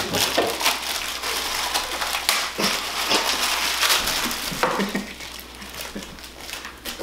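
Plastic instant ramen packet torn open and crinkled, with the dry noodle block crunching and snapping as it is handled. Dense crackling for about the first five seconds, then quieter, with only scattered crackles.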